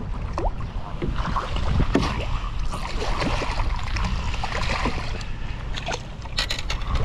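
A small lake trout splashing at the surface as it is netted beside a kayak, with water sloshing against the net and hull. A steady low rumble of wind on the microphone runs under it, and a few sharp clicks come near the end.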